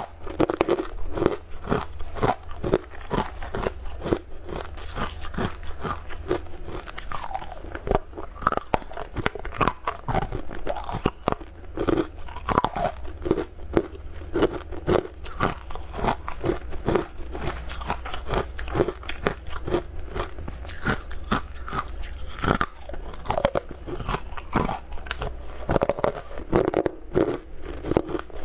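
Close-up crunching and chewing of hard, sugary amber candy chunks, with many sharp crisp cracks several times a second as the pieces are bitten and ground.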